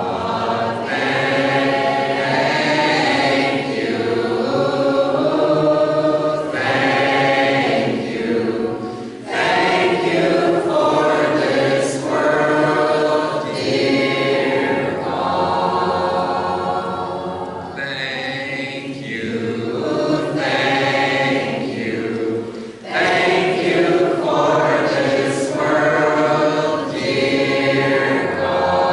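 Doukhobor congregation singing a hymn in chorus, many voices a cappella, in long phrases with two brief breaths between them.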